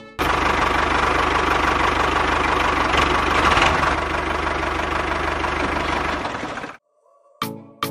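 Tractor engine running steadily with a fast, even low chug. It starts abruptly and cuts off suddenly near the end.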